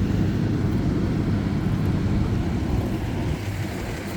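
Steady low rumble of fire-truck diesel engines idling.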